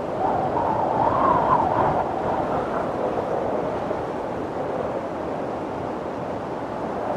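Wind blowing steadily, with a wavering howl that swells and rises in pitch about a second in, then settles back to a steady rush.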